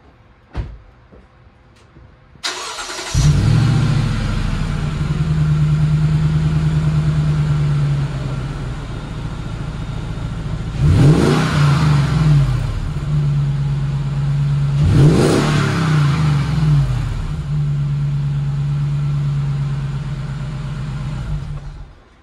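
2013 Lexus GX460's V8 heard right at the tailpipe of its Magnaflow Overlander cat-back exhaust on the stock Y-pipe. It is started about two and a half seconds in, idles, is revved twice, and is switched off just before the end.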